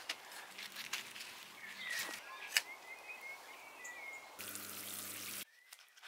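Garden ambience: a steady hiss with short bird chirps and a few sharp clicks. About four and a half seconds in it cuts to a second of steady hum and hiss, then a few faint clicks near the end.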